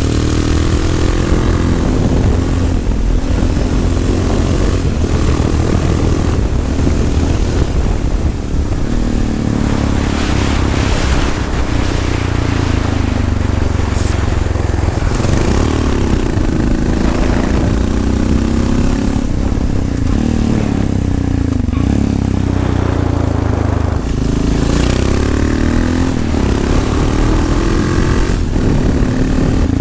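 Yamaha XT660R's single-cylinder four-stroke engine with a LeoVince exhaust, under way: the revs climb and drop several times as the bike accelerates and eases off.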